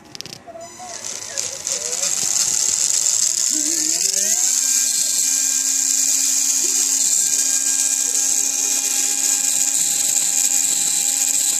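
The gearbox of a Tamiya TXT-1 RC truck, driven by its small electric motor, spins up with a rising whine over the first few seconds, then runs at a steady pitch with gear whine and a high hiss. It is being test-run to check for an abnormal gear noise, which the owner traces to the backlash between the pinion and the gear.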